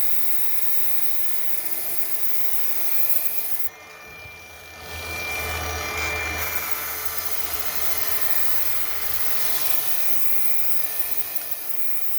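Hercules rotary polisher running with a 180-grit sanding disc, its motor whining steadily as the disc grinds down body filler on a fiberglass panel. The sanding sound drops off briefly about four seconds in, then comes back.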